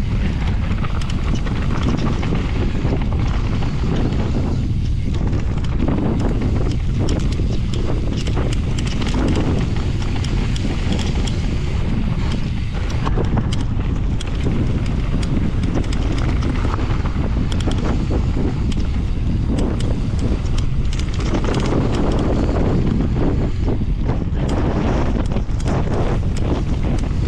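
Mountain bike riding a trail: heavy wind buffeting the microphone, with many short clicks and knocks as the bike rattles over rough ground.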